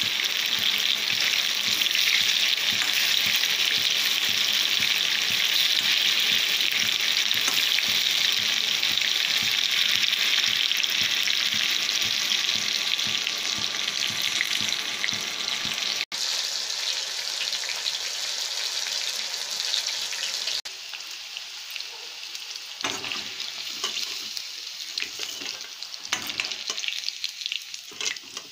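Besan-battered chicken pakoras deep-frying in hot oil in an iron kadhai: a dense, steady sizzle while a ladle stirs them. About two-thirds of the way through the sizzle drops away, and the ladle's scattered knocks and scrapes on the pan are heard as the pieces are lifted out of the oil.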